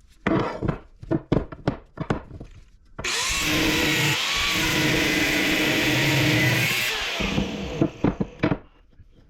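Power cutting tool cutting through the thick steel shell of a sealed compressor, running steadily for about four seconds and then stopping abruptly. A run of sharp knocks and clanks comes before the cut, and a few more come after it.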